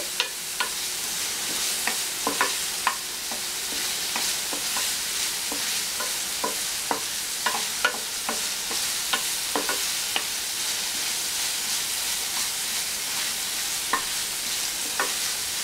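Chopped onion and green bell pepper sizzling in hot oil in a frying pan as they are sautéed, with a steady hiss. The spatula stirring them scrapes and taps against the pan in scattered clicks, which grow sparse near the end.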